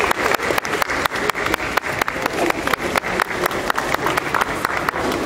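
Spectators applauding, with sharp individual hand claps close by, thinning out near the end.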